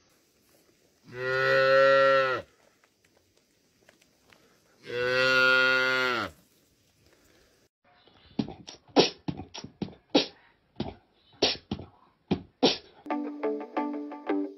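Two long, low, steady animal calls about four seconds apart. These are followed by a run of sharp, irregular clicks, and music with plucked notes starts near the end.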